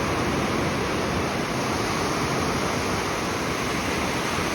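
Ocean surf washing on the beach, a steady, even rushing noise.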